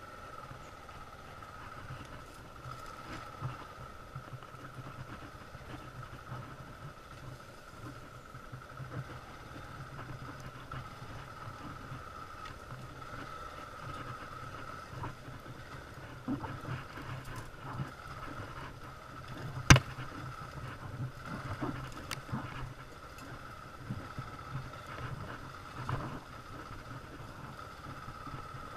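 An engine running steadily with a constant hum, broken by a single sharp click a little after the middle and a few lighter knocks.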